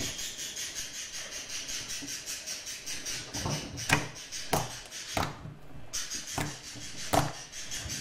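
Glue slime being squeezed and worked by hand: rhythmic squishing at about four to five strokes a second, then, from about four seconds in, a few sharp slime clicks as air pockets pop.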